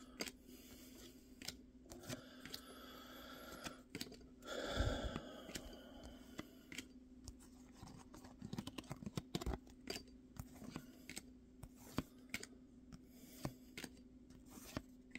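Baseball cards being flipped through in the hand: short crisp clicks and slides of card stock as one card after another is moved through the stack, with a longer, louder rustle about five seconds in, over a faint steady hum.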